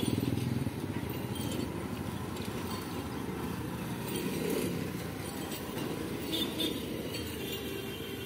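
Light road traffic going by: motorcycle engines running past in a steady hum, with a few light metallic clinks and rattles from the bikes and rickshaws.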